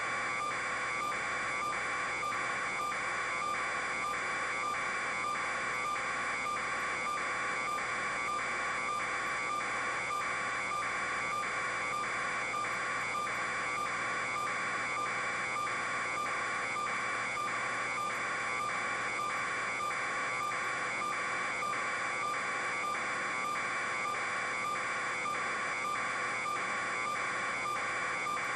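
Steady electronic buzzing tone pulsing evenly about twice a second, over a constant hum of several steady tones, unchanged throughout.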